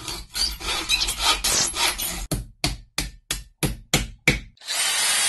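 Rasping strokes of a hand tool on wood, quick and irregular at first, then an even run of about four strokes a second. About a second before the end they give way to a steady hiss.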